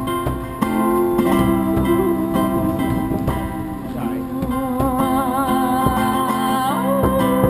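Music: guitar playing, with a wavering held melody line coming in about halfway through.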